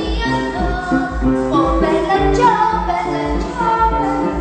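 Piano playing with a woman singing along in a wavering voice, over a steady low pulse about twice a second.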